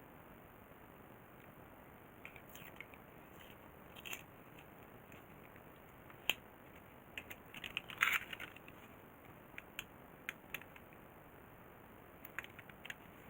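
Scattered small clicks and taps of hands handling parts and tools, with a brief flurry of them about two thirds of the way through, over a faint steady hiss.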